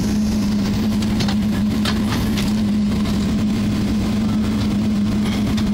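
Steady cabin noise of an Airbus A380 taxiing toward the gate, with a constant low hum running under it and a few faint clicks.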